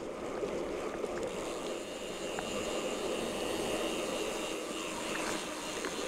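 Steady rushing noise of riding a loaded bicycle along a potholed road: wind on the microphone and tyre noise, with a few light clicks of the bike rattling.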